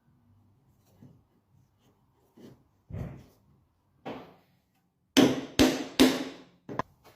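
Hammering on wood: a few lighter knocks, then three hard blows in quick succession about five seconds in, followed by a lighter one.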